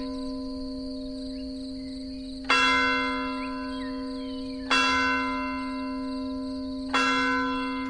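A church bell tolling: three strikes about two seconds apart, each ringing on and slowly dying away, with the previous stroke's ringing already sounding at the start.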